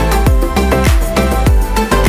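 Background dance music with a steady beat of deep, falling-pitch drum hits over held notes and a constant bass.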